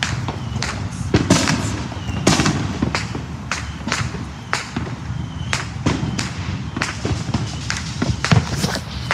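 Fireworks going off in a rapid, irregular string of sharp bangs and crackles, several a second, over a steady low rumble, with a few short whistles among them.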